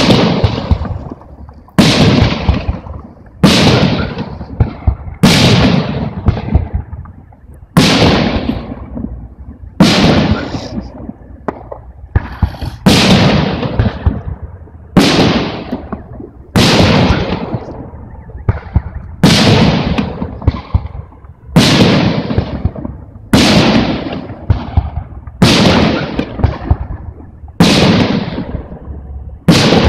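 Aerial firework shells bursting in a steady sequence, a loud bang about every two seconds, each trailing off over a second or so.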